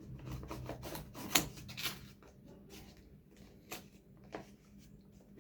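Hands unwrapping and handling a package: scattered rustles and small clicks, with one sharper click about a second and a half in.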